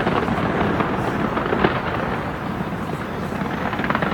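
Aerial fireworks going off in quick succession: a dense, continuous crackle of many small bangs, with a few louder bursts.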